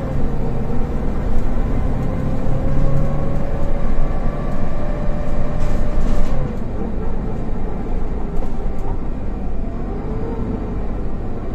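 Cabin sound of a Golden Dragon XML6125CC city bus under way: a low engine rumble with a whine from the drivetrain and Voith automatic gearbox. The whine holds steady, falls in pitch and gets quieter about six seconds in, then rises again near the end as the revs change.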